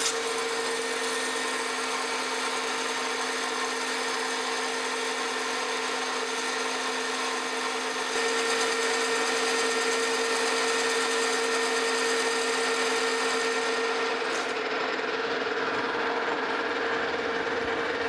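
Metal lathe turning a bronze bushing on a mandrel under a heavy roughing cut: a steady motor hum and whine under the hiss of the tool cutting. It grows louder about eight seconds in, and the cutting hiss drops away near the end while the lathe keeps running.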